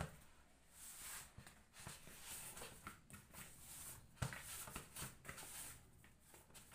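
Hands kneading soft flour dough in a plastic bowl: faint, soft squishing and rubbing strokes that come and go about once a second, with a light knock about four seconds in.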